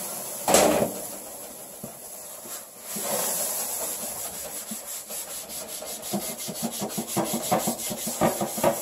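A scouring pad with a screen scrubbing a hot, wet stainless-steel cook stove top: water hissing as it steams off the hot metal at first, a loud knock about half a second in, then rhythmic back-and-forth scrubbing strokes from about three seconds in, quickening to about three or four a second.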